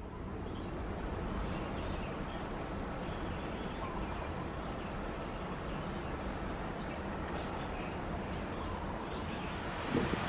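Steady outdoor background noise, mostly wind with a low distant rumble, and a few faint bird chirps. A couple of louder wind gusts on the microphone come near the end.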